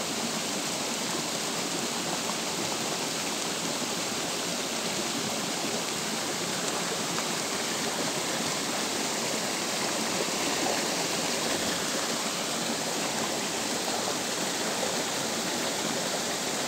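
Steady rain falling on a shallow stream and the leaves around it, mixed with the running water of the stream: an even hiss with no breaks.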